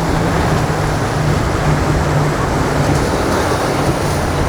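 Boat engines running steadily with a low hum, over the wash of waves and wind.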